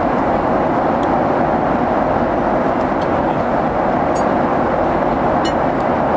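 Steady rushing cabin noise inside a Boeing 777 airliner in flight. A couple of faint light clicks come about four and five and a half seconds in.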